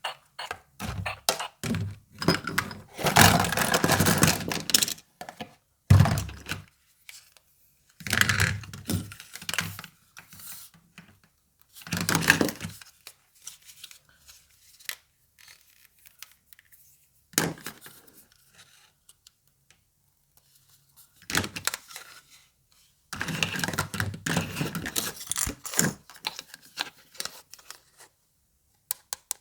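A miniature toy doctor set and its packaging being unboxed and handled by hand: bursts of scraping, tearing and rustling with small thunks, broken by short pauses.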